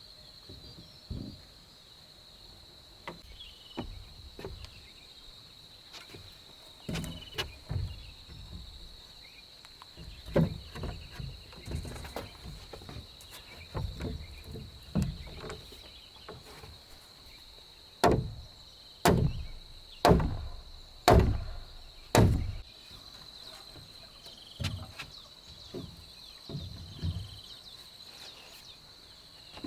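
Irregular knocks and thuds on timber during wooden-part assembly, with five heavy blows about a second apart roughly two-thirds of the way through. A steady high insect drone runs underneath.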